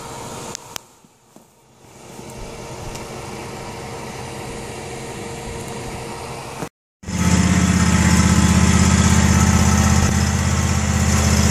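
A steady low room hum for the first seven seconds. After a short break, a Cub Cadet lawn tractor's engine runs loud and steady.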